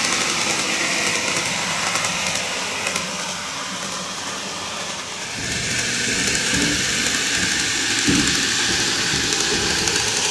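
Greenmax N gauge Kintetsu 12410 series model train running on TOMIX superelevated track: a steady rattling hiss of small wheels rolling over the rails. About halfway through the sound changes abruptly and grows fuller and a little louder as the train comes toward the camera.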